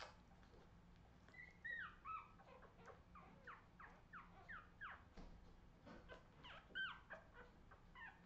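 Australian terrier puppies squeaking and whimpering faintly: many short, high, falling squeals, two or three a second, starting about a second in.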